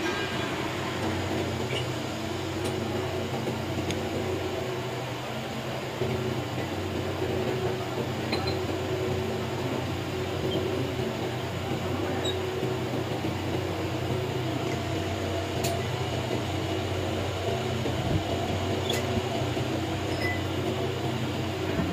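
A machine running with a steady hum, with a few faint clicks.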